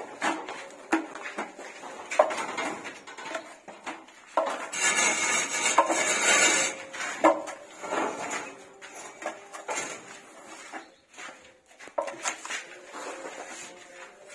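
Metal putty blades scraping and clacking as wall putty is spread and levelled on a plastered wall, in short strokes and knocks with one longer scrape about five seconds in that lasts about two seconds.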